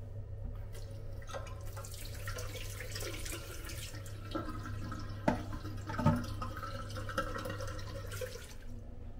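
Tap water running from a single-lever faucet into a washbasin while hands are washed under the stream. It starts about a second in and is shut off just before the end. Two sharp clicks a little past halfway are the loudest sounds.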